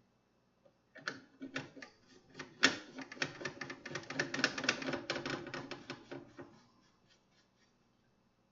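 Rapid clicking and rattling of a computer's cables and internal parts being handled and fitted into place, scattered at first, then dense for a few seconds before stopping about six and a half seconds in.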